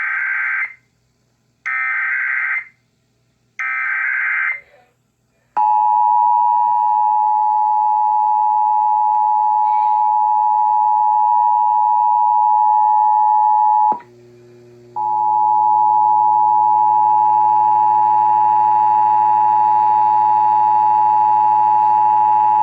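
Emergency Alert System broadcast start: three short bursts of warbling digital SAME header data, then the loud steady two-tone EAS attention signal. About fourteen seconds in, the tone drops out for a second of low hum, then resumes and stops near the end. This opens the North Carolina monthly EAS test.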